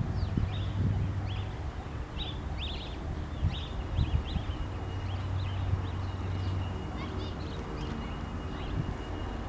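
Small birds chirping in quick, repeated short notes over a steady low rumble, with a thin, steady high tone in the middle stretch.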